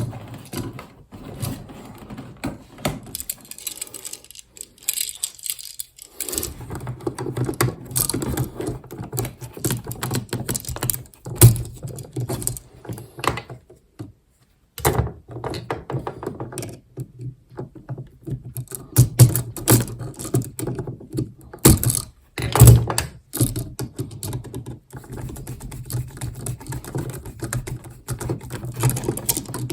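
Irregular clicking, tapping and knocking from hands working electrical wires and connectors in a switch box, with a few sharper knocks along the way.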